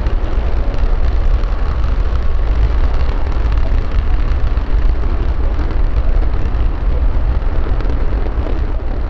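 SpaceX Raptor methane rocket engine firing steadily during a static test: a loud, continuous rush of exhaust noise with a heavy low rumble.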